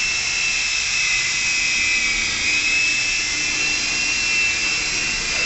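Blade mCX micro coaxial RC helicopter in flight: a steady high-pitched whine from its small electric motors over the hiss of its spinning rotors.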